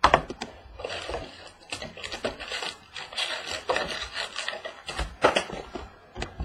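Cardboard trading-card boxes and their wrapping being handled and opened: irregular rustling and scraping, with sharp clicks at the start and about five seconds in.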